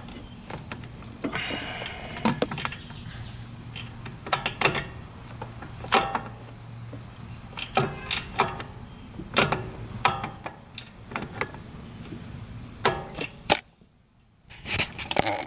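Irregular clicks and knocks of metal parts being handled and rubber fuel hoses being pushed aside while a hand works at a mower engine's starter mounting, over a low steady hum.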